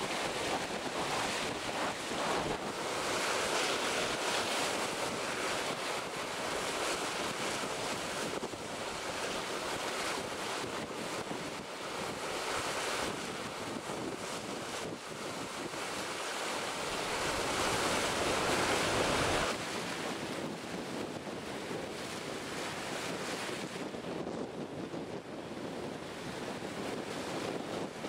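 Rushing water and spray along the hull of an IMOCA 60 racing yacht sailing fast, with wind buffeting the microphone. The rush swells louder and eases several times as waves pass, and drops back sharply about two-thirds of the way through.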